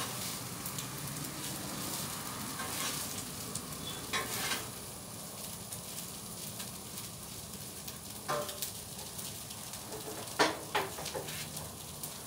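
Fried rice with chicken, bacon and vegetables sizzling on a Blackstone propane flat-top griddle. Metal spatulas scrape and tap the steel cooktop now and then as the rice is stirred and turned.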